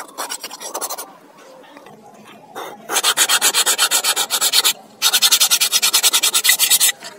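Sandpaper rubbed by hand along an old wooden knife handle: light strokes at first, then two long runs of fast, loud back-and-forth sanding strokes with a short pause between them, about five seconds in.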